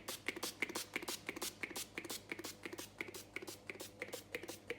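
Pump-action cooking oil spray squirting oil into an air fryer basket in a quick run of short hissing sprays, about three or four a second.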